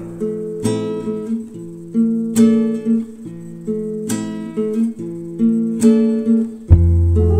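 Background music: acoustic guitar chords strummed about every couple of seconds, each chord left to ring.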